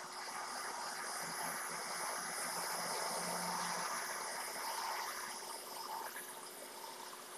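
Hakko FR810B hot air rework station blowing a steady rush of hot air over a graphics card memory chip to melt its solder for removal and reballing. The hiss swells about a second in and eases off near the end.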